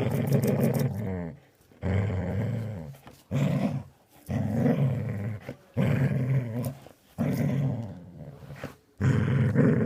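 A dog making a repeated drawn-out growling noise, about seven growls in a row, each around a second long with short pauses between for breath.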